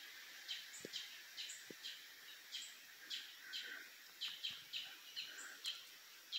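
Faint, short, high chirps repeating about twice a second over a steady background hiss, typical of a small bird calling over and over. Two faint low knocks come in the first two seconds.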